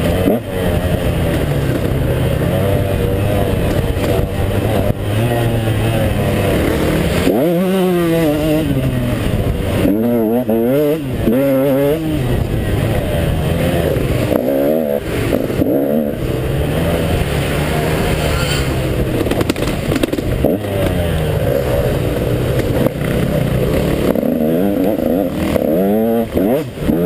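KTM 150 XC two-stroke dirt-bike engine running hard under race throttle. Its pitch repeatedly climbs sharply and drops back as the rider revs it and shifts, about a third of the way in, twice between a third and halfway, and again near the end.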